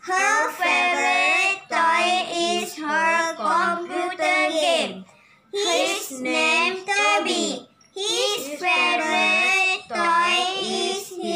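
Children's voices reading aloud together from an English picture book, in a sing-song chorus, with two short pauses between phrases.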